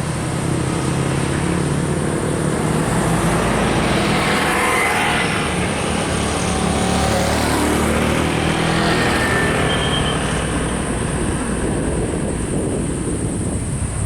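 Road vehicle engine and tyre noise, steady and swelling slightly in the middle as the traffic moves past.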